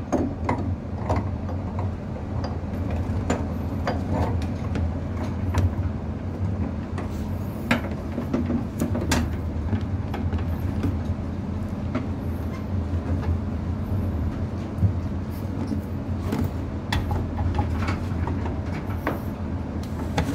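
A steady low machinery hum, with scattered metallic clicks and knocks as the cooling water pump assembly is handled and fitted back onto the lifeboat engine.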